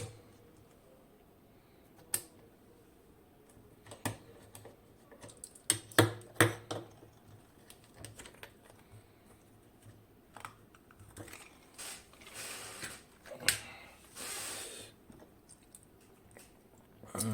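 Scattered sharp clicks and taps from handling a pin tumbler lock and its small metal parts, the loudest pair about six seconds in. Two short scraping or rustling passages come near the end.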